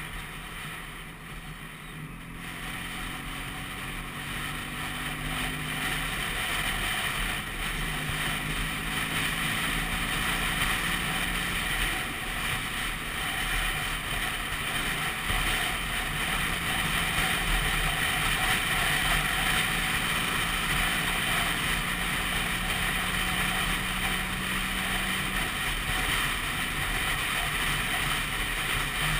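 Vespa PX200's two-stroke single-cylinder engine running under way, with a steady rush of wind noise on the microphone. The engine note comes in a couple of seconds in, grows louder, and holds steady pitches that jump up or down several times.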